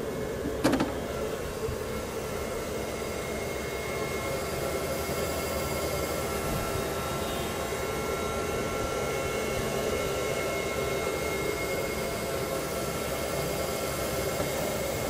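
Cooling fans of a home-built 24 V sine-wave inverter running steadily with the inverter under load, with a faint steady high whine. A single knock sounds near the start.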